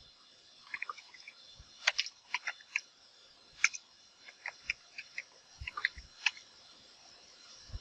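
Computer keyboard being typed on: irregular runs of sharp key clicks with short pauses between them.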